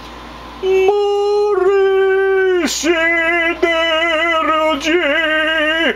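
A voice holding two long notes. The first starts about a second in and falls away near the middle. The second wavers slightly and carries on to the end.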